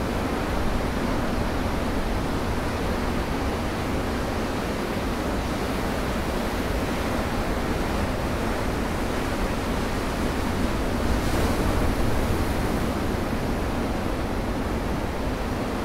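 Ocean surf breaking on a rocky shore: a continuous rush of foaming whitewater. It grows briefly louder and brighter about eleven seconds in as a wave breaks.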